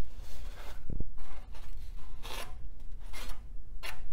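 Paper towel wiping and scrubbing the bare sheet-metal floor of a PC tower case in a run of short rubbing strokes, with one low knock about a second in. This is dust and dead insects being wiped out of the chassis.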